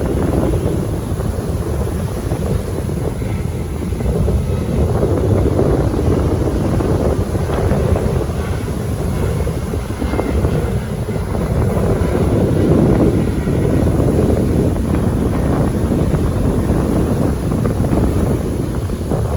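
Wind buffeting the phone's microphone, a loud, steady low rumble that swells and eases without a break.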